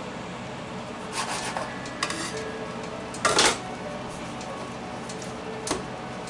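Hands shaping bread dough balls on a floured countertop: a few brief knocks and scuffs against the counter, the loudest about three seconds in, over faint background music.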